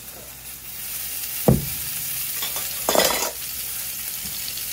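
Bok choy and garlic sizzling in ghee in a hot frying pan, a steady frying hiss. A single sharp knock comes about a second and a half in, and a short louder rush of sizzle about three seconds in.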